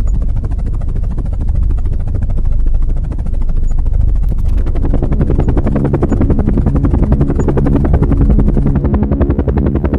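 Chinook tandem-rotor helicopter running, its rotors beating in a fast, steady pulse over a deep drone. About halfway through a steady hum joins in.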